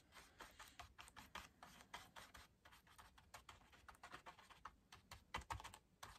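Faint, irregular light tapping and scratching of a stencil brush dabbing and swirling paint in a paper plate, mixing the paint and working excess off the bristles.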